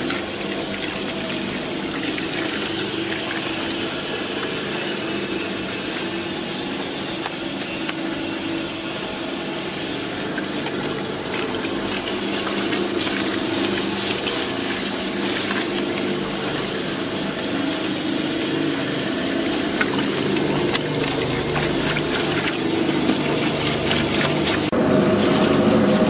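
Sesame washing machine running: water and washed sesame seeds pour in a steady stream from its steel discharge spout into a stainless-steel bin, over a steady low machine hum. The sound grows a little louder about halfway through.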